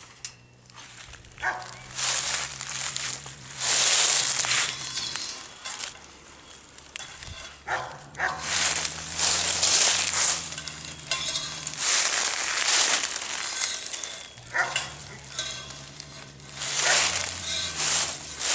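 A caged serval hissing over and over, in loud breathy bursts of about a second each, at an animal being fed by pole through the fence. A low steady drone runs under much of it.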